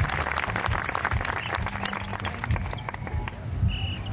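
Crowd applauding, the clapping dense at first and thinning out toward the end.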